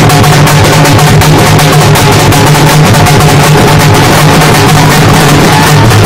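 Several halgi frame drums beaten together in a loud, fast, continuous rhythm of dense strokes.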